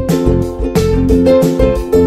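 Background music with plucked guitar over a steady beat.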